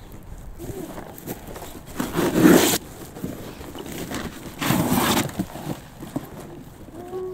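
Two scrapes of soil being shovelled, about two and a half seconds apart, with the first the louder.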